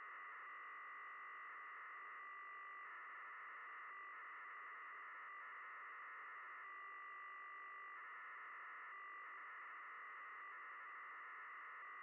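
Receiver audio of the QO-100 satellite's mid-beacon: a steady, hiss-like band of BPSK data signal. Its texture shifts in blocks every second or so as the telemetry is sent.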